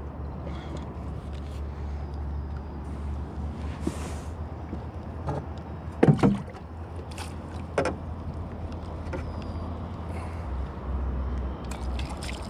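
Knocks and clunks against the metal hull of a small jon boat, the loudest a double thump about six seconds in, over a steady low rumble.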